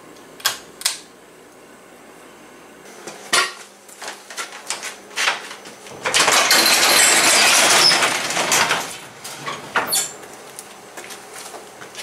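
Sectional garage door rattling and clattering as it is raised, a loud run of about three seconds in the middle, after two sharp clicks of a pull-cord light switch and a few knocks.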